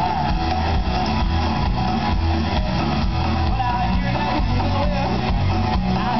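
Live rock band music with electric guitar over a steady bass line.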